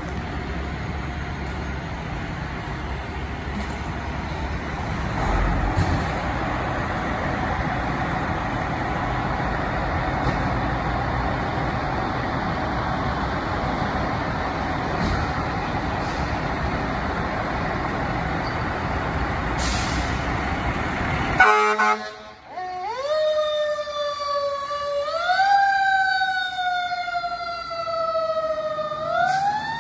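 Fire engine's diesel engine running loudly as the rig pulls out, then after an abrupt break its electronic siren wails, rising and falling in slow sweeps.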